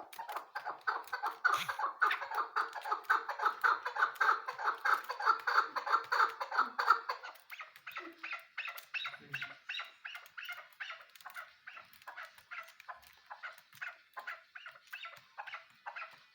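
Chukar partridge calling: a rapid run of short clucking notes, several a second. The notes are loud for about the first seven seconds, then go on fainter and higher-pitched.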